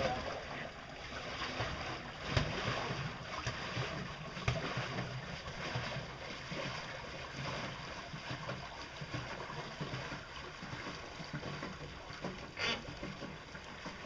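Water churning and splashing behind a small homemade pedal-driven pontoon boat as it pulls away, gradually fading, with a few sharp knocks, the loudest near the end.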